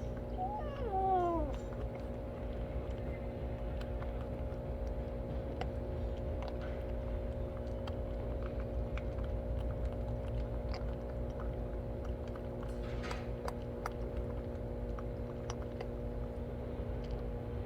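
A cat meows once, about a second in, with a short call that falls in pitch. Under it runs a steady mechanical hum with scattered faint clicks.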